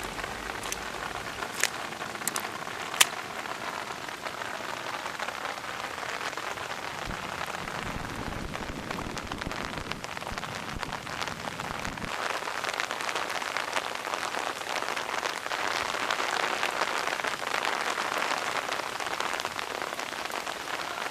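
Steady rain falling, with a few sharp clicks in the first few seconds.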